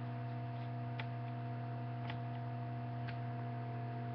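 Landline telephone dial tone: a steady, unbroken hum of constant pitch, with a few faint clicks about a second apart.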